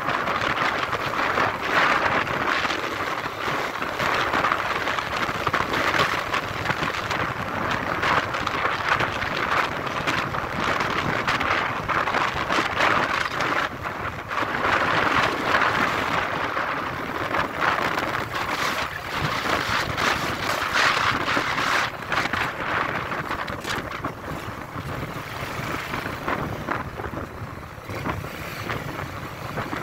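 Wind rushing and buffeting over the microphone on a moving motorcycle, with its engine and tyre noise underneath; the rush swells and dips and eases somewhat in the last few seconds.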